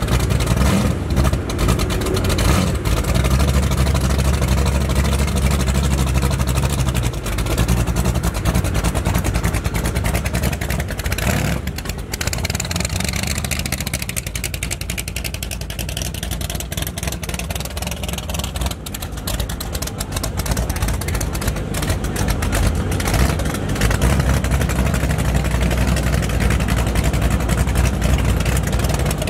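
Rumble of hot rod engines running at low speed as cars move slowly through the show lot, with crowd chatter. The deep engine rumble is strongest for several seconds near the start and again near the end.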